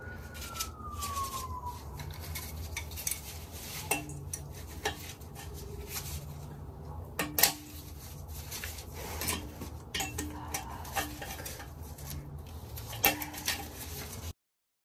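Hand tools clinking and scraping against metal toilet hardware while the toilet's floor bolts are being worked loose, with scattered sharp clicks and a few short ringing clinks. The sound cuts off abruptly near the end.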